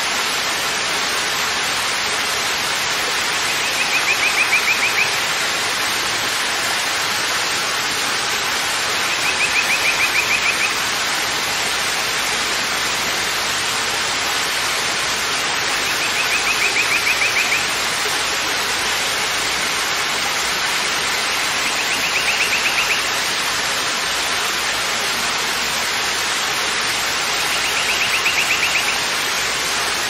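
Waterfall rushing steadily. A short high-pitched trill cuts through the rush five times, about every six seconds.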